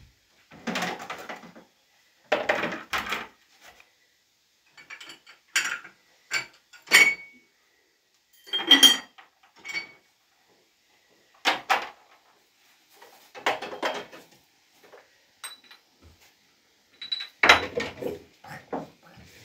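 Kitchenware being handled: a string of separate knocks, scrapes and clinks every second or two, some ringing briefly like metal.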